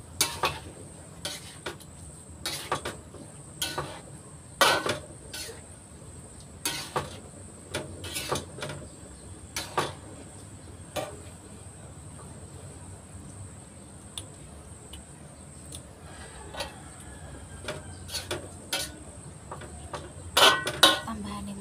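Metal spatula knocking and scraping against a pan while stir-frying chicken gizzards and livers: irregular sharp clacks about once a second, with a quick cluster of the loudest near the end, over a steady low hum.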